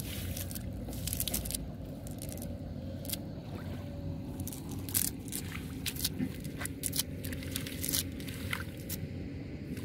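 Wet nylon cast net being handled and gathered in shallow water: irregular sharp splashes, drips and squelching crackles several times a second, over a low steady background rumble.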